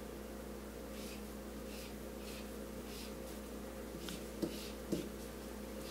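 Quiet room tone with a steady low electrical hum, faint brief rustles, and two soft knocks about four and a half and five seconds in.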